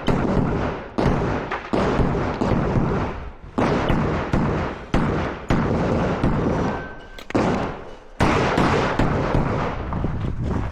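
Glock 47 9 mm pistol fired through a practical shooting stage: about a dozen single shots, spaced unevenly from half a second to two seconds apart, each trailing a long echo.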